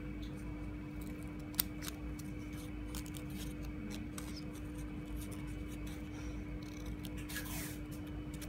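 Small steel scissors snipping through folded ashless filter paper: a few short, crisp snips spread out, with a sharper click about a second and a half in. Under them runs a steady low hum.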